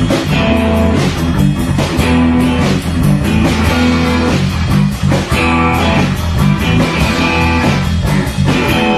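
Rock band jamming live: an electric guitar (a black Fender Stratocaster), a bass guitar and a drum kit playing together in a steady groove.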